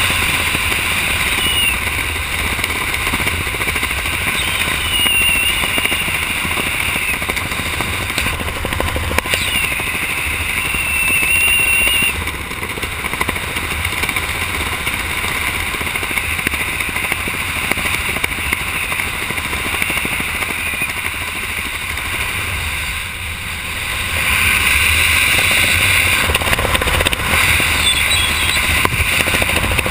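Wind rushing over a body- or helmet-mounted action camera's microphone during a skydive descent under canopy: a steady loud rush with a few brief, faint high whistles.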